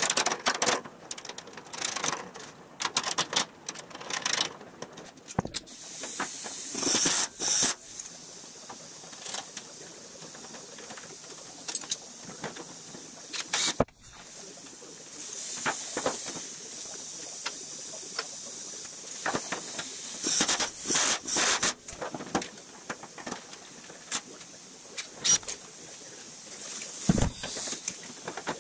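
An aluminum car-body panel being riveted to a steel frame: short bursts of hiss from the rivet gun and sharp clicks and clinks of metal being handled, at irregular intervals.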